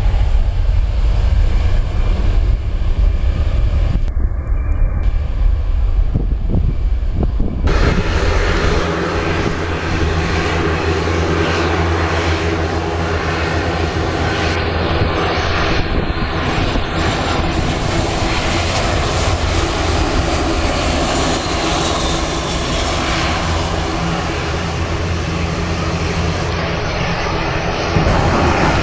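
Airliner engine noise, steady and loud. It starts with a heavy low rumble and changes suddenly about eight seconds in to a fuller, steady sound with a hum over it.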